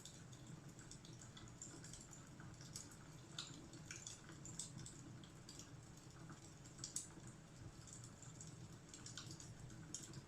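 Fireplace crackling faintly: scattered small snaps and pops over a low steady rumble.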